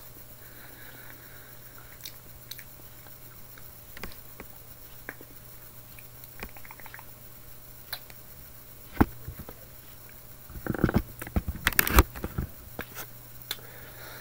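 A person eating a microwave lamb curry with rice, close to the microphone: scattered light clicks of cutlery, then a burst of loud biting and chewing sounds near the end, over a faint steady low hum.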